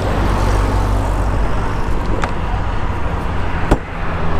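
Yamaha NMAX 155's single-cylinder scooter engine idling steadily, with traffic noise around it. A single sharp click about three and a half seconds in.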